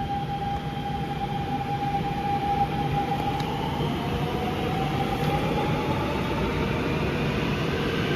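Train running: a steady low rumble with a high whine that rises a little in pitch about halfway through.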